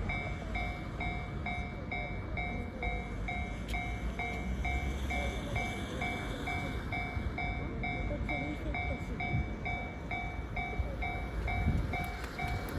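Japanese railway level-crossing warning bell ringing, a repeated electronic ding about twice a second, over a low rumble.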